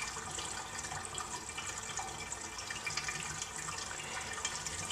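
Water draining out of a Jacuzzi Elite Series whirlpool bathtub: a steady sound of running and trickling water.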